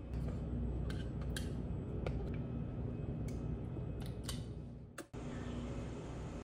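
Several light clicks and knocks of kitchen containers, lids and spoons being handled on a stone counter, over a low steady room hum.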